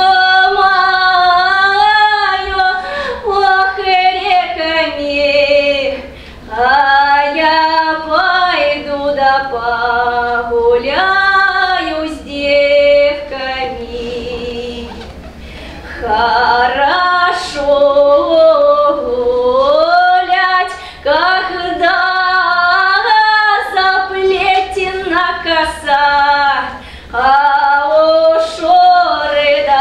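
A woman singing a Russian folk song solo and unaccompanied, in long ornamented phrases with short breaths between them. The singing turns softer for a couple of seconds about halfway through, then comes back at full voice.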